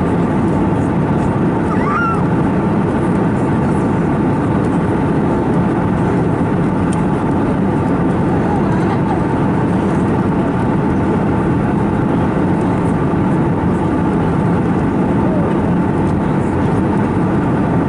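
Steady cabin noise inside an Airbus A321neo airliner in flight: an unbroken rush of airflow and drone from its CFM LEAP-1A turbofans, heaviest in the low range.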